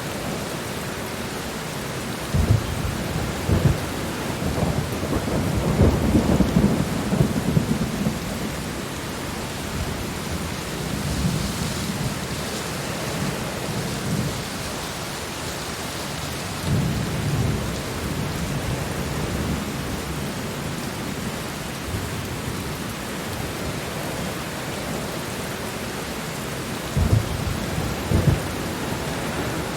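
Steady rainstorm with thunder rumbling over it: low rolls starting about two seconds in and loudest a few seconds later, another around the middle, and two short ones near the end.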